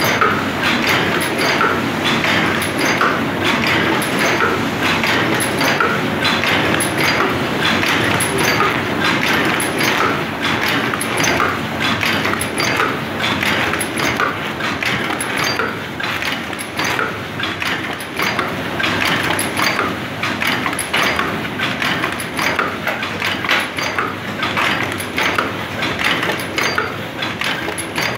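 Automatic paper cup making machine running at speed: a loud, continuous, fast mechanical clatter of many rapid clicks and knocks from its moving linkages and rotating cup-forming turret.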